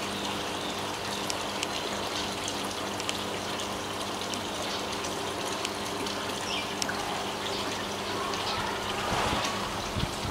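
A stream of water pouring from a hose pipe into a pond, splashing steadily, with a steady low hum underneath.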